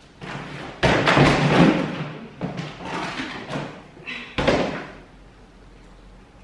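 Rummaging inside a plastic shipping barrel: plastic wrapping rustling and packed items bumping and thudding as a plastic pet-food container is lifted out, with a sharp knock about four seconds in.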